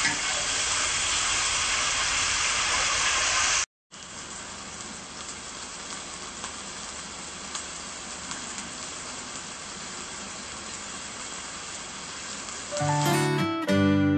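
Slices of beef frying in hot oil in a wok, a steady sizzle as they are turned for the first few seconds. After a brief drop-out the frying goes on more quietly as bubbling oil. Plucked guitar music comes in near the end.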